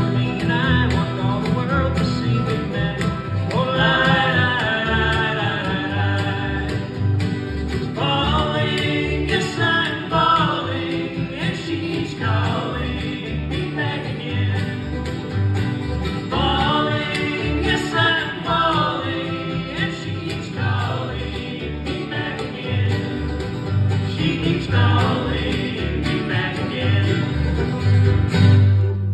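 Live bluegrass band of banjo, mandolin, two acoustic guitars and upright bass playing an uptempo number with singing, over a steady bass pulse. The song ends on a loud final chord near the end.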